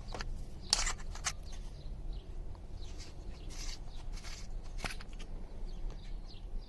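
Scattered clicks and scrapes of hands twisting open the aluminium battery compartment of a Nebo Slide King 2K flashlight.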